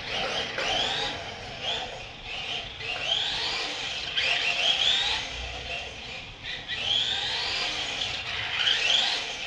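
LaTrax 1/18-scale electric RC car driving in repeated bursts of throttle, its motor and drivetrain whining higher in pitch with each burst.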